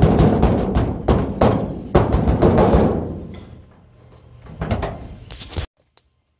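Repeated heavy thumps of a hand banging on the sheet-metal hood of a 1988 Chevy C1500 pickup while its sticking hood latch is pulled. The blows come thick and fast for about three seconds, then a few more come near the end before the sound stops abruptly.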